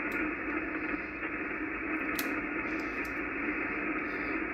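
Steady band-noise hiss from an Icom IC-746PRO HF transceiver's speaker on the 80 m band, the receiver open on an empty sideband channel between transmissions and narrowed to a voice-width passband, with a couple of faint clicks.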